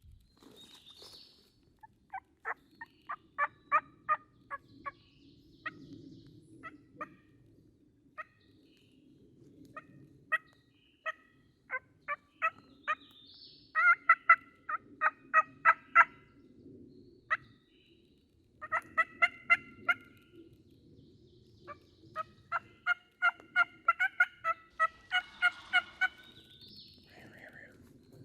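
Hen turkey calling: runs of short, sharp yelps and cuts, with the loudest runs about halfway through and near the end. This is light calling meant to draw a gobble.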